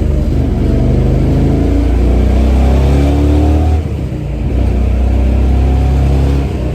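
1970 Chevy Nova's 383 V8 revving up under acceleration, its pitch rising. The sound drops briefly about four seconds in at a gear change, then the engine pulls again.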